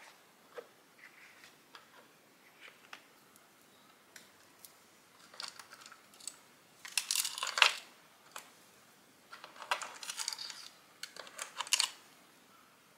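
Small clicks of rings and a fabric-covered jewellery case being handled, then a tangled metal chain necklace jingling as it is handled, in two spells, the louder about seven seconds in and another about ten seconds in.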